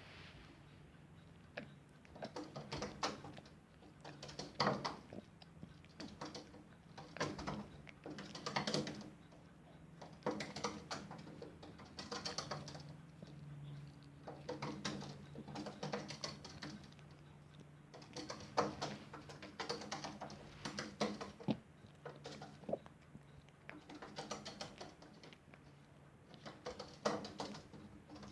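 A chihuahua licking a sphynx cat: spurts of quick, wet lapping clicks come every second or two, over a faint steady low hum.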